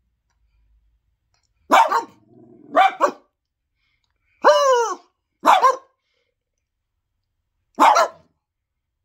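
A small poodle and a man imitating it trading short barks, five in all, spread over about six seconds. A low growl runs between the first two barks, and the man appears to make the last bark himself.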